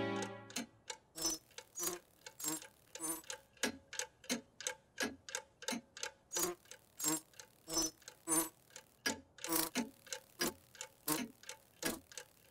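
Mantel clock ticking steadily, a sound effect of short, even ticks at about three a second.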